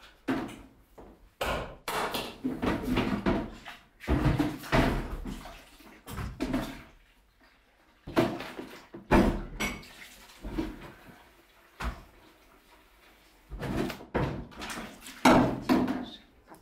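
Cleaning things being dug out of kitchen cupboards: a string of irregular knocks, bangs and clatters as cupboard doors open and shut and a plastic bucket and a mop handle are pulled out and handled.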